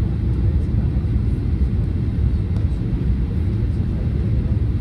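Steady low rumble of engine and airflow noise inside the cabin of a Boeing 737-800 in flight.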